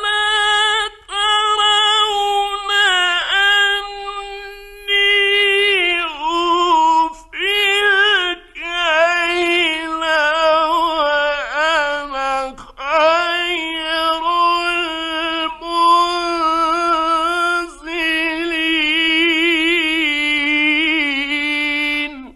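A male Qur'an reciter chanting in a high voice in an old radio recording: long melodic phrases with wavering ornaments, broken by several short pauses for breath.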